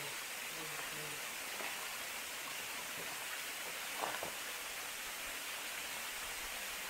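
Steady hiss of running water, with a faint voice in the first second and a single tap about four seconds in.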